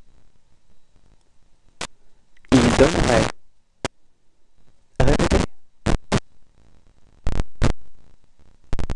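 A voice speaks one short phrase, followed by a series of brief, sharp pops, several of them bunched in the second half.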